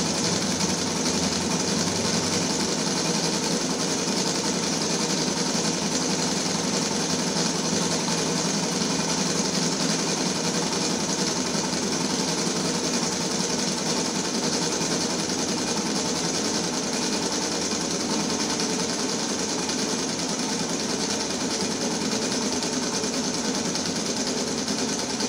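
Model Stirling-engine helicopter running steadily, its pistons, crank linkage and spinning main rotor making a continuous fast mechanical whir.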